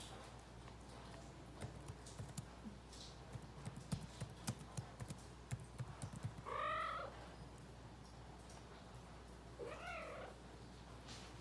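Calico cat meowing twice, a few seconds apart, each call short and rising then falling. Before the meows there is a run of soft knocks.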